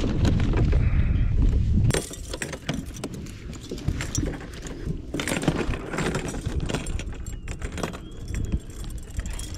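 Metal chain fish stringer jangling and clinking as a channel catfish is clipped onto it. A loud low rumble fills about the first two seconds, then stops suddenly.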